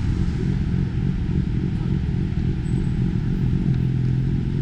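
Busy city-street traffic: a steady low rumble of passing motor vehicles, with one engine's note standing out near the end.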